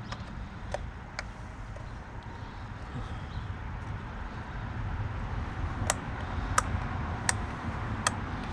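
Sharp plastic clicks and taps from the ignition coil electrical connectors being pushed and snapped onto the new coils in the engine bay: a few early, then four about 0.7 s apart near the end, over a steady low background rumble.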